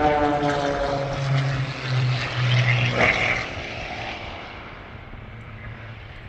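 Propeller airplane flying past: its engine and propeller drone drops in pitch and fades away over a few seconds.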